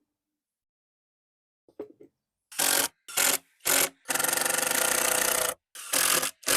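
Power drill driving screws into wooden deck boards: three short bursts, then a longer run of about a second and a half, then two more short bursts.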